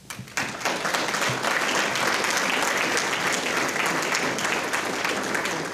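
Audience applauding, a dense clatter of many hands clapping that starts a moment in and eases off near the end.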